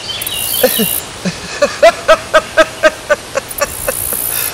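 An animal calling: a quick series of short chirping notes, about four a second, loudest in the middle and thinning out toward the end.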